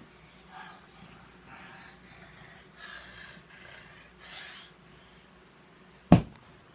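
A person breathing hard and snorting in a series of short, noisy breaths, imitating a wolf. About six seconds in there is a single loud thump.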